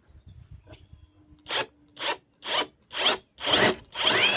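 Cordless impact driver backing a Phillips screw out of a steel plate and the wood beneath it. The driver runs in short loud bursts about two a second, starting about a second and a half in, with the later bursts longer and carrying a rising whine.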